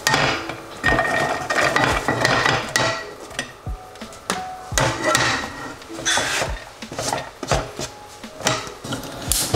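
Plastic cutting board knocking on the rim of a non-stick frying pan while diced onions are scraped off it by hand into the pan, the pieces scattering onto the pan. The knocks are sharp and irregular, about one a second.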